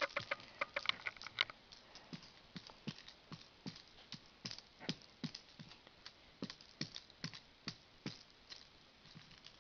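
A kitten's paws pattering and thumping on a hard floor: irregular light taps with soft thumps, about two to three a second, with a quick flurry of clicks in the first second and a half.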